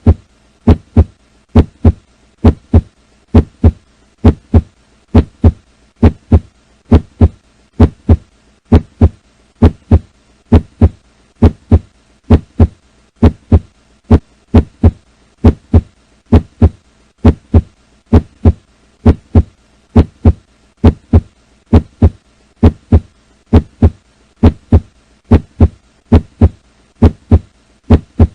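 Human heart sounds: a steady heartbeat of paired lub-dub thumps, about one beat a second.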